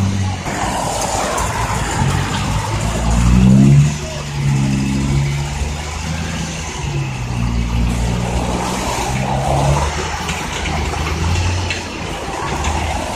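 Diesel engine of a loaded six-wheel dump truck running as it pulls slowly along. It revs up about three seconds in, then holds at a few steady pitches.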